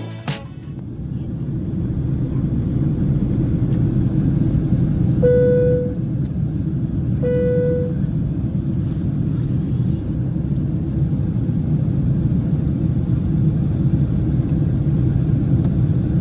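Steady roar of a Boeing 767's cabin in flight, with two single-tone cabin chimes about two seconds apart a third of the way in.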